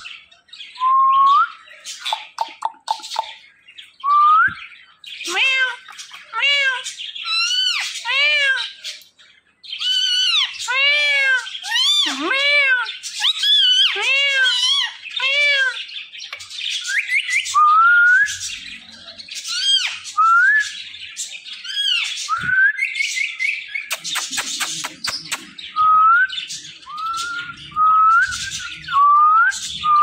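Indian ringneck parakeet calling: short rising whistles and long runs of arched, repeated squawks, with bursts of rapid clicking about two seconds in and again near twenty-four seconds.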